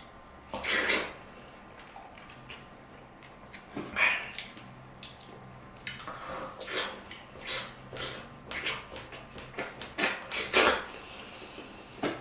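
Close-up eating sounds of someone eating juicy dragon fruit: wet chewing and slurping in irregular bursts, thickest in the second half.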